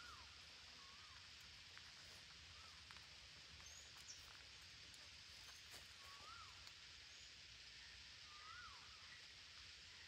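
Near silence: faint outdoor ambience with a steady high hiss and about four faint, distant bird whistles, each rising and then dropping in pitch.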